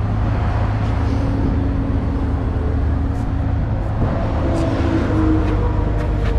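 Cat 308 mini excavator's diesel engine running steadily under load. A whine from the hydraulics comes and goes twice.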